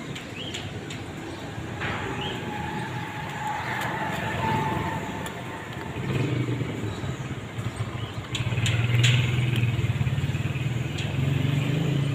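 A motor vehicle's engine running close by, growing louder over the second half of the stretch.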